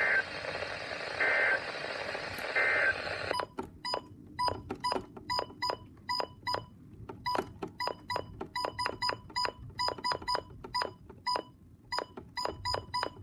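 Three short EAS end-of-message data bursts (the screechy digital tones) over the weather radio's static, about a second and a half apart. About three seconds in the static cuts off, and a rapid, uneven run of short electronic beeps follows.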